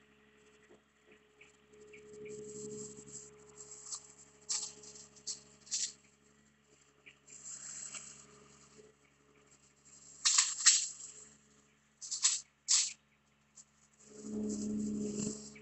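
Low steady hum of an excavator's engine, with several short, sharp metallic rattles and scrapes from the steel rebar cages slung from its bucket, the loudest of them about two-thirds of the way through. Near the end the engine hum swells louder.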